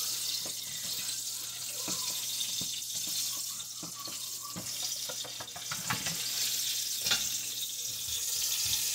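Steady frying sizzle from pans on the stove, with soft scrapes and taps of a plastic whisk stirring a cooking butter-and-flour roux. A low steady hum runs underneath.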